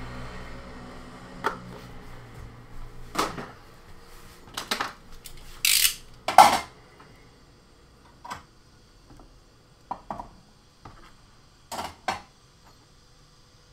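Hand tools and a plastic box being picked up off a wooden workbench and put away: a string of irregular clicks, knocks and clatters, the loudest about six seconds in.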